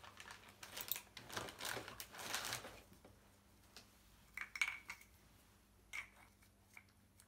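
Handling noise: a few seconds of rustling, then a handful of light metallic clinks, some briefly ringing, as a small metal pipe fitting is handled.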